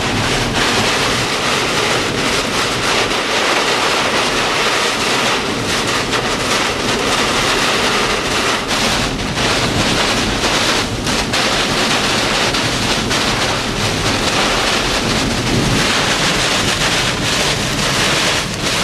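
Hurricane-force wind blowing hard and steadily, with repeated gusts buffeting the camcorder microphone.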